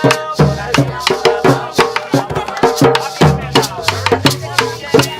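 Afro-Colombian Caribbean drum music: hand drums beating a quick, steady rhythm with a shaker rattling along and a voice singing over them.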